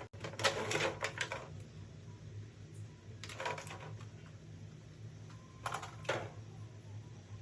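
Clicking and rustling of packaging and plastic toy parts being handled, in three short bursts with a steady low hum underneath.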